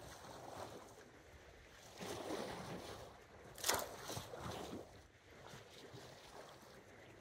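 Small waves washing against the rocks at the foot of a harbour breakwater, with some wind on the microphone. About three and a half seconds in there is one sharp slap or knock, with a few weaker ones just after.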